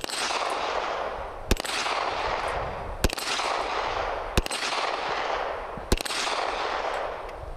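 1911 pistol firing a slow string of single shots about one and a half seconds apart, each shot trailing off in echo.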